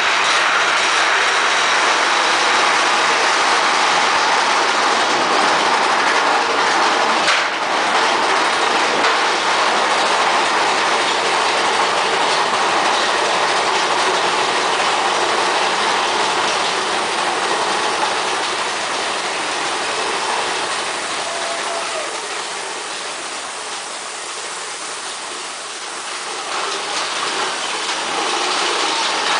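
Big Thunder Mountain Railroad mine-train roller coaster running on its track, a steady loud rattle and clatter of the cars and wheels. It eases off for a few seconds and builds again near the end.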